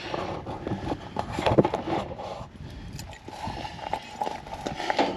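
Irregular knocks and clicks of a garden hose and its spray nozzle being handled and fitted together.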